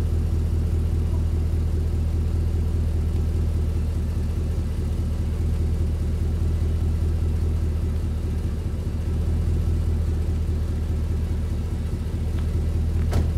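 A 2016 Ram 1500's 5.7 Hemi V8 idling steadily through an aftermarket dual exhaust with small replacement mufflers, a low, even V8 rumble as it warms up.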